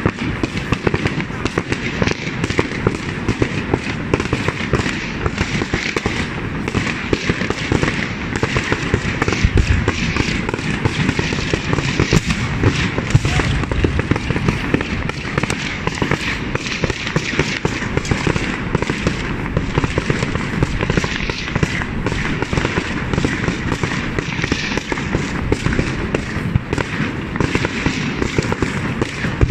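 Fireworks display going off in a dense, unbroken run of many small bangs, with people's voices in the background.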